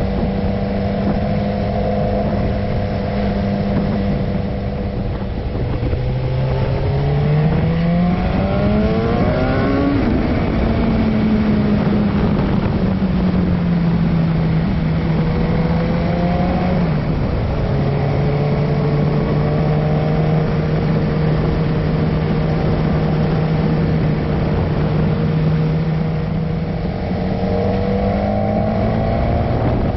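Motorcycle engine heard from the moving bike. The revs climb for several seconds, drop suddenly, ease down, drop sharply again, then hold steady before climbing once more near the end, over steady wind and road noise.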